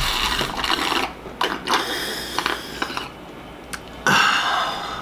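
Loud slurping as milk is drunk straight from a plastic cereal bowl, then a short clatter about four seconds in as the bowl with its spoon is set back down on the table.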